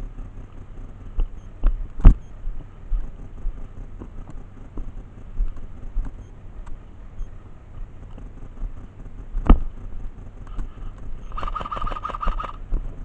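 Airsoft gun firing a rapid full-auto burst of about a second, near the end. Before it there is a low rumble with two sharp knocks.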